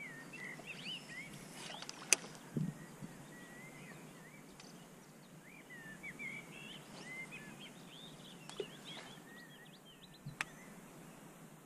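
Small birds chirping and twittering in short rising and falling calls, with a sharp click about two seconds in, a soft low thump just after it, and another click near the end.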